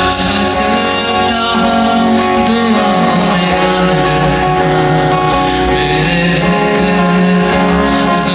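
A man singing a Hindi song live, accompanied by electric guitar.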